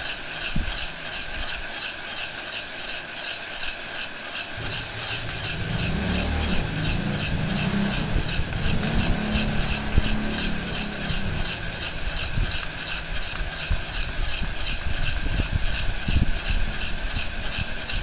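Handheld heat gun blowing steadily into a metal pot while a spoon stirs green coffee beans, a continuous dry rattle and scrape of beans against the pot under the whir of the gun's fan. A low engine-like rumble swells about four seconds in and fades out a few seconds later.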